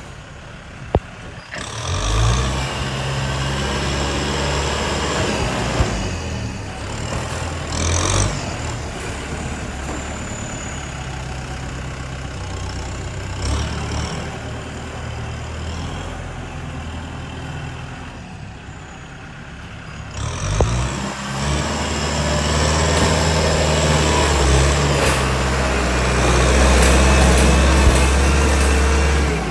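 Heavy diesel engine of a dump truck or bulldozer running under load. It revs up about two seconds in and again about twenty seconds in, and is loudest near the end, with a short sharp knock about a second in.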